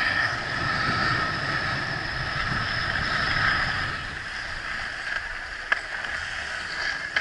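Skis sliding and scraping over hard-packed groomed snow. The sound fades about four seconds in as the skier slows and stops, and after that there are quieter noise and two sharp clicks.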